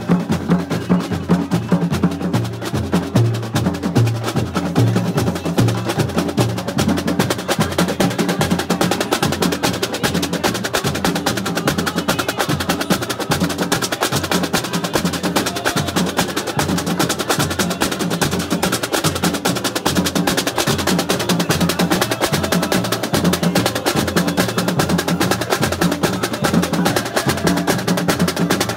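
Carnival batucada drum line playing: big bass drums (surdos) beaten with mallets under snare drums, in a fast, steady groove of dense, rapid strokes.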